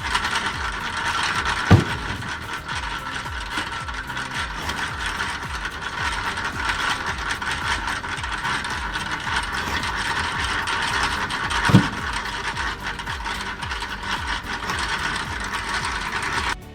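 Homemade wood splitter running with a steady mechanical clatter of rapid ticks and rattles. Two sharp knocks stand out, about two seconds in and again about twelve seconds in. The sound cuts off just before the end.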